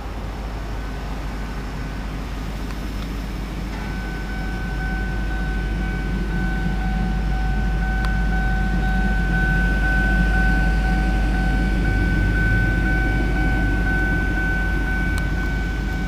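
2002 Ford Thunderbird's 3.9-litre V8 idling with a steady low rumble. A steady high-pitched whine joins about four seconds in, and the sound grows louder toward the middle and eases near the end.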